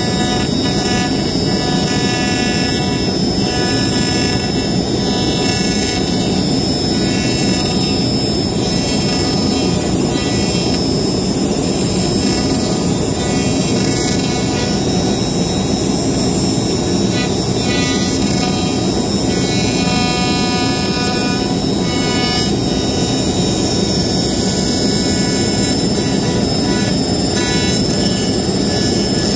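Laguna iQ CNC router running steadily, its spindle whining as a 60-degree V-bit carves grooves in wood at 100 inches per minute.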